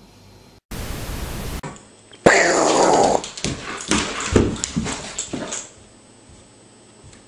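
A German Shepherd dog vocalising loudly, starting suddenly about two seconds in and running for about three seconds with several sharp breaks. Just before it comes about a second of even hiss.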